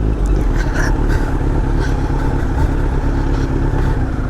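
Kawasaki Z900's inline-four engine running steadily while the motorcycle is ridden at an easy pace, with no hard revving.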